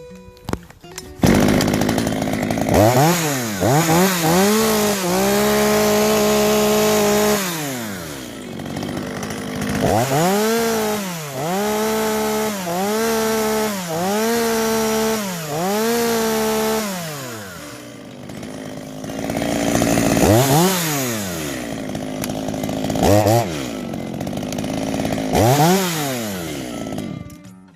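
Echo CS-350WES chainsaw's two-stroke engine running under test: it fires up about a second in, is revved repeatedly to high speed and let fall back to idle, held at high speed for a couple of seconds, and cuts off near the end. The engine is in good order after repair: it starts easily and runs normally at low speed, high speed and idle.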